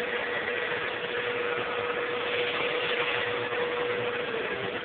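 Vacuum cleaner running steadily, a rushing motor noise with a steady whining tone.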